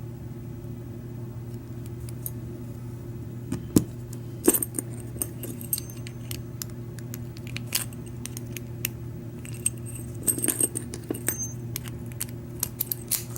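Small metal clicks and clinks at irregular intervals as the parts of a Schlage F-Series knob lock are handled, its cylinder clip put back and the knob reassembled. A steady low hum runs underneath.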